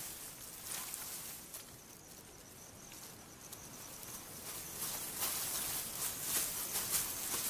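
Savanna grassland ambience: a faint high insect drone with soft rustling and clicking in the grass, growing busier and louder about five seconds in.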